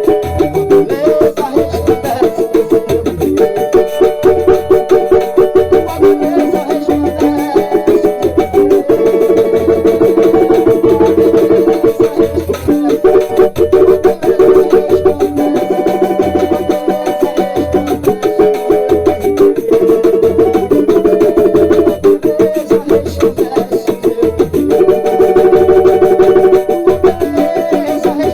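Banjo played in a long instrumental passage of rapid picked and tremolo notes, over a steady low beat about once a second.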